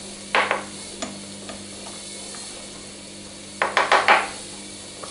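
A slotted skimming spoon knocks against the pot and bowl while foam is skimmed off a boiling stew in an open electric pressure cooker. There is one knock about half a second in, a light click after it, and a quick cluster of three or four knocks around three and a half seconds in. A steady low hum runs underneath, from the washing machine running in the background.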